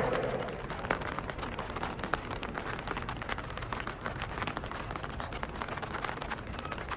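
Rain falling, heard as a steady hiss with many small irregular drop ticks close by. A low hum fades out in the first half second.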